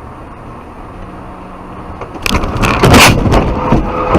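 Steady noise of a car on the road, then about two seconds in a sudden change to much louder noise with a run of sharp knocks and crunches.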